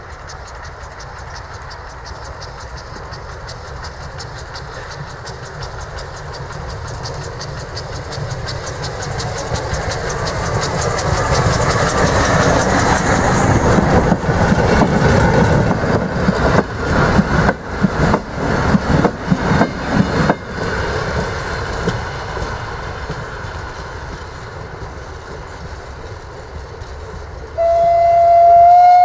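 Prussian T3 steam tank locomotive and its train of coaches passing: the running noise grows louder as the locomotive approaches and goes by, then the coaches' wheels clatter over the rail joints in quick knocks and the sound fades as the train draws away. About a second and a half before the end, the locomotive's steam whistle starts, a loud steady whistle.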